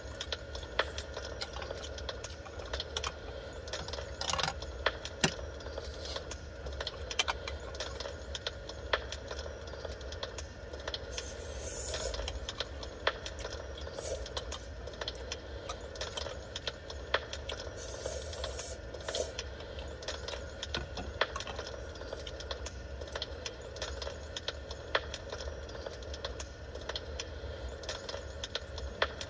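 Recorded wood fire crackling: irregular pops and snaps over a steady low hum.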